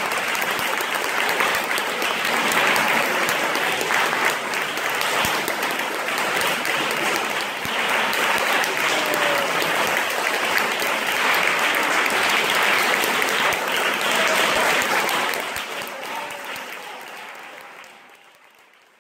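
Audience applauding, steady dense clapping that fades out over the last few seconds.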